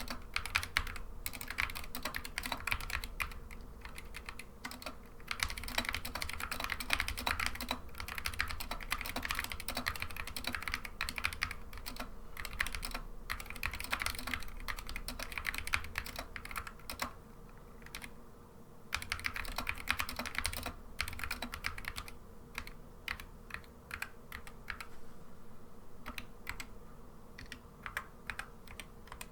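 Typing on a Dierya x Kemove DK61 mechanical keyboard with linear Gateron Optical Red switches and PBT doubleshot keycaps, dampened with foam and switch films: a continuous run of keystrokes, with a short pause a little past halfway and sparser typing near the end.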